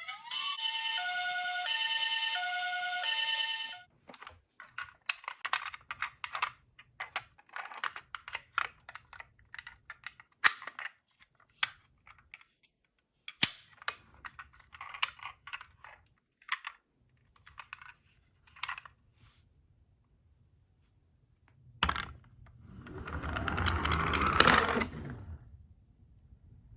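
A toy ambulance's electronic two-tone siren alternates high and low for about four seconds, then cuts off. A long run of small plastic clicks and rattles follows. Near the end a rushing, rolling noise swells and fades, with a sharp knock at its start.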